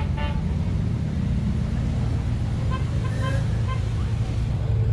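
Vintage cars and golf carts driving slowly past, their engines a steady low rumble, with a few faint brief pitched calls over it.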